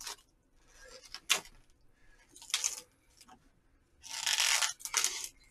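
Plastic takeout packaging crinkling and rustling as a wrapped side-dish container is handled and its film peeled off, in a few short bursts, the longest about four seconds in.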